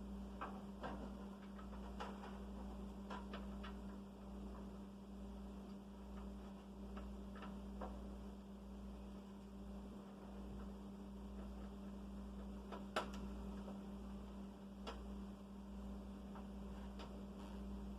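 Steady low electrical hum, with scattered light clicks and taps from computer parts and cables being handled; the sharpest click comes about 13 seconds in.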